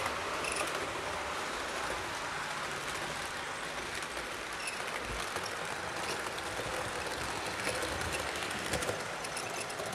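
HO scale model passenger train running along the track: a steady rolling rumble of wheels on rail with a few light clicks.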